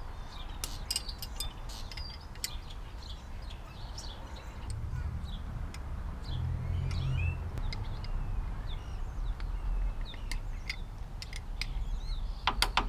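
Songbirds chirping, with scattered light clicks and a steady low rumble that swells about halfway through.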